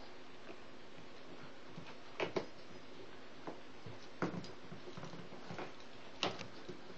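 Dogs rummaging in a clear plastic toy box: scattered sharp knocks and rattles of toys against the plastic, the loudest about two, four and six seconds in.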